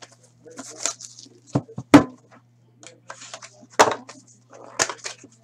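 Plastic shrink wrap crinkling and tearing as it is pulled off a cardboard box of hockey cards, then the box and a card pack being handled: a run of short rustles and sharp snaps, the loudest about two seconds in, over a faint steady hum.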